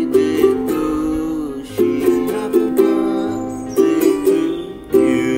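Ukulele being strummed. Several chords are struck, each left to ring before the next group of strums.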